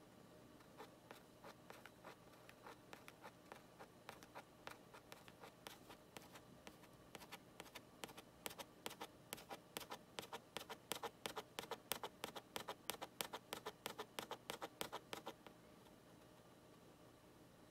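Small hand-held accelerometer circuit board and its connecting wires rattling and clicking as they are shaken rapidly back and forth, about three sharp clicks a second. The clicks grow louder past the middle and stop abruptly a couple of seconds before the end.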